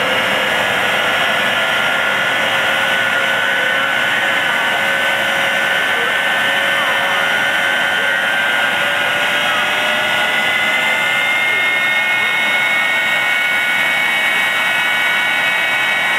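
Jet dragsters' Westinghouse J34 turbojet engines running steadily before launch: a loud, even jet whine with several high tones, one climbing slightly in pitch from about ten seconds in.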